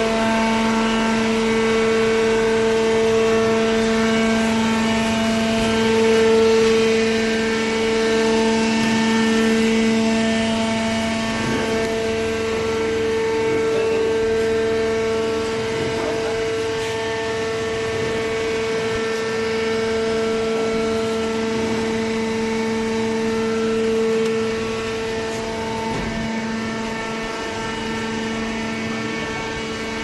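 Horizontal cardboard baler's electric motor and hydraulic pump running, a steady machine hum with one strong low tone and a stack of overtones above it. It eases off slightly near the end.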